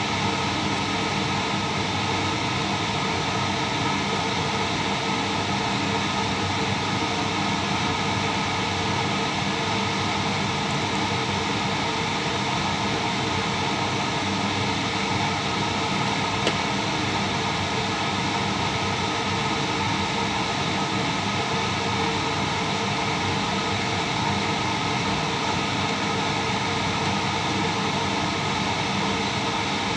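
Steady whirring noise of a running fan, unchanging throughout, with one brief click about halfway through.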